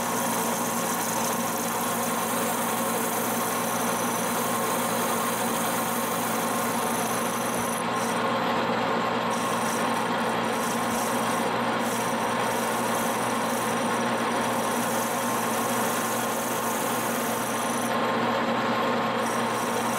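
Monarch engine lathe running under power, its tool turning a steel rake spindle: a steady machine drone with several held tones, and a hiss of cutting that breaks off and comes back through the second half.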